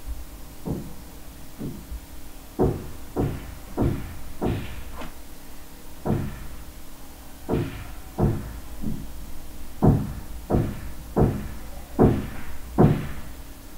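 A series of about sixteen dull knocks at uneven spacing, roughly one every half second to a second, over a low steady hum.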